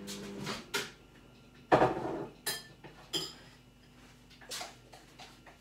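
Microwave oven hum cutting out about half a second in, then a click and a loud clunk, followed by several light clinks of a bowl and cutlery.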